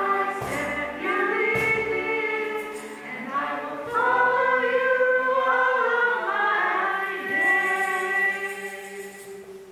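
A small church praise team of mixed voices sings with piano, violin and acoustic guitars, with a few hand-percussion hits early on. The song ends on a long held final chord that fades out near the end.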